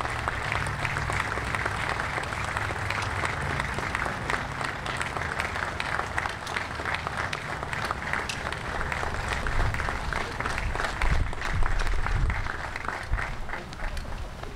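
A crowd applauding, a dense patter of many hands clapping that thins out near the end.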